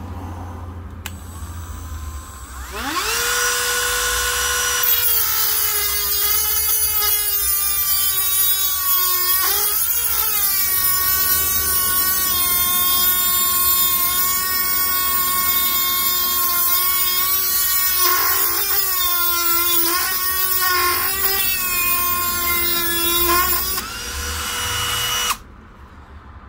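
Dremel 8220 12 V cordless rotary tool spinning up with a rising whine, then its fibre-reinforced cut-off wheel grinding through a 6 mm steel bolt, the motor pitch sagging at times under the load. The tool stops suddenly near the end.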